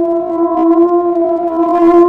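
A loud, steady droning tone held on one pitch with its overtones, wavering slightly.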